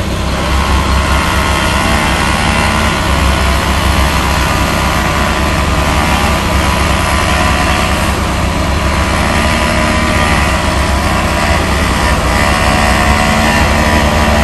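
Concrete mixer truck's diesel engine running steadily at a constant speed.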